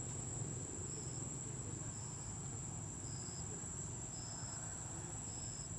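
Insects trilling in one steady high-pitched drone, with a shorter note repeating about once a second.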